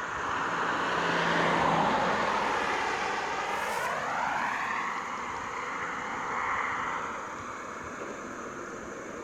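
An aircraft passing overhead: a steady rushing engine sound that swells and slowly fades, with a sweeping, phasing quality as it goes by.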